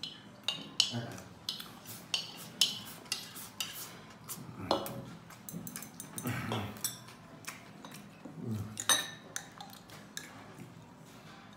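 Cutlery clinking and scraping against a ceramic bowl as the last of a rice dish is scooped up. There is a quick run of clinks over the first few seconds, then a few more spaced out, with softer mouth sounds between.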